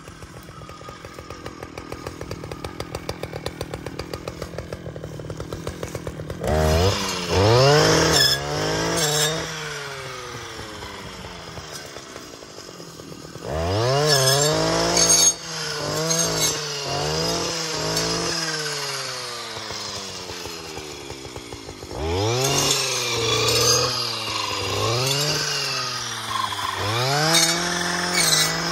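Stihl FS 560 C two-stroke brush cutter with a carbide circular saw blade, idling and then run up to high revs three times. At high revs the engine pitch sags and recovers again and again as the blade cuts into bushes and young tree trunks.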